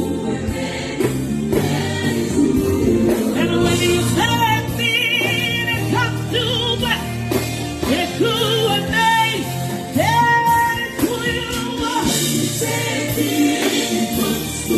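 Gospel music: a lead vocal holding notes with a wide vibrato over sustained keyboard chords and bass, with choir-like backing voices.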